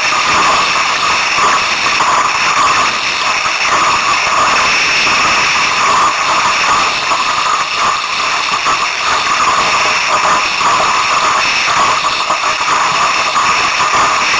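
Strong wind and water rushing past a small Sunfish sailboat under sail: a loud, steady rushing noise with no breaks.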